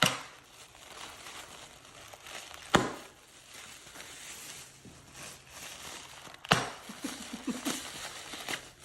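Plastic bubble wrap being handled and crinkled, with three sharp pops a few seconds apart as bubbles burst.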